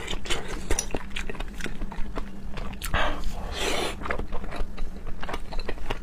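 Close-miked eating of raw seafood: wet chewing with many sharp mouth clicks and lip smacks, and a longer slurping suck about three seconds in.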